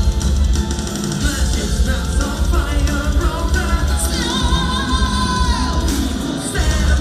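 Symphonic power metal band playing live: electric guitars, bass, drums and sung vocals. About four seconds in, a long held, wavering high note bends down near the end while the drums briefly drop out.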